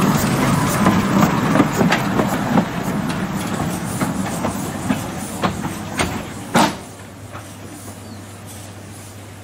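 W.G. Bagnall narrow-gauge steam locomotive running past and away along the track, with repeated clicks and clanks from wheels and rails. A louder sharp clank comes about six and a half seconds in, after which the sound drops away to a quieter steady background.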